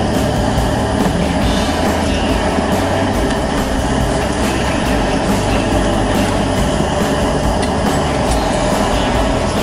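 Strong wind buffeting the microphone: a loud, steady rumbling noise with no breaks.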